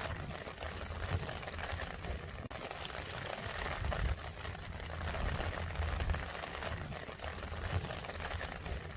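Rain falling, a steady crackling patter with a low rumble underneath, dropping out briefly about two and a half seconds in.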